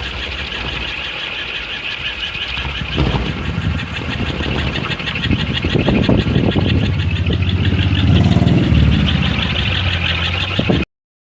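Kolecer, a wooden propeller windmill on a pole, whirring steadily as it spins in strong wind, with gusts buffeting the microphone that grow louder from about three seconds in. The sound cuts off suddenly near the end.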